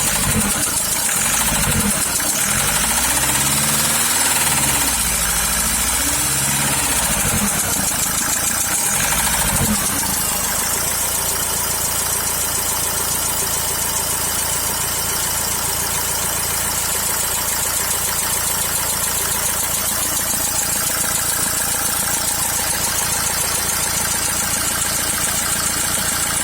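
2.0 dCi 110 kW diesel engine whose revs rise and fall several times over the first ten seconds, then settle to a steady idle. A knock comes from the top of the engine that the owner cannot place: under the valve cover or the injectors.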